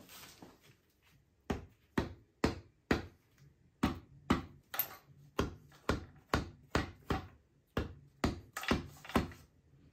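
Sharp metal taps in a ZF 5HP24A automatic transmission case, repeating about twice a second and starting about a second and a half in.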